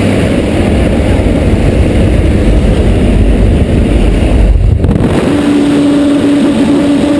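Loud rush of wind and aircraft engine noise at the open jump door of a plane in flight, buffeting the microphone. About five seconds in, a steady humming tone joins.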